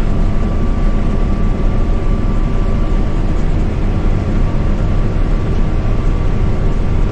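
Combine harvester running steadily while harvesting, heard from inside its cab: an even, loud machine drone with a faint steady whine over it.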